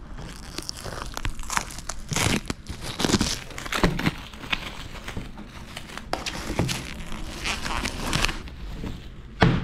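Plastic shrink-wrap being picked at, torn and peeled off a paperback book, crinkling and crackling in irregular bursts, with one loud crackle near the end.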